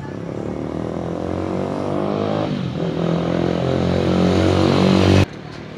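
A motor vehicle's engine running, growing steadily louder, then cut off abruptly about five seconds in.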